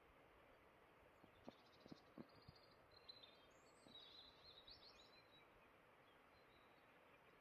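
Near silence: faint background hiss with a few soft clicks about a second or two in, then faint high bird chirps.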